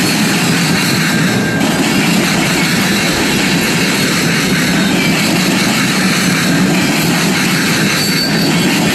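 Freight train cars rolling past close by, a steady loud rumble and rattle of steel wheels on the rails.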